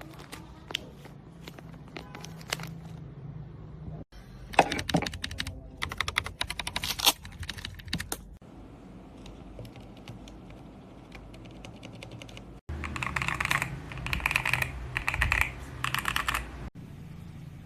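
Mechanical keyboard with Akko Cream Yellow V3 linear switches being typed on. Short stretches of scattered single keystrokes alternate with bursts of fast typing, in several takes separated by abrupt cuts.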